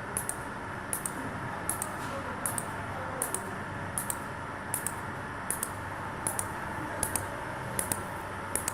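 Laser soldering machine running an automatic cycle: a steady train of sharp double clicks, one pair about every three-quarters of a second, over a steady mechanical hum.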